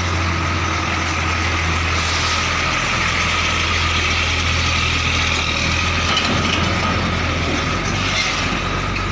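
Heavy container truck's diesel engine running steadily at low speed, a deep hum with a thin steady whine over it.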